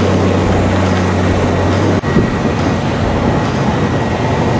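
Interior sound of a 1977 C3 Corvette under way with its roof panels off: a steady low drone from its V8 engine under a constant rush of wind and road noise. About halfway through the sound changes abruptly, and the rushing wind noise takes over.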